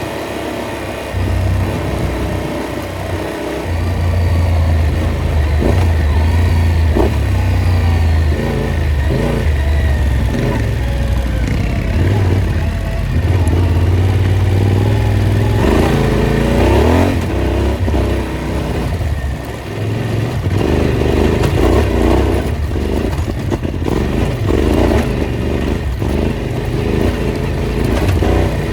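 Off-road vehicle engine running under load, its pitch and loudness rising and falling with the throttle, with scattered knocks and rattles from rough ground.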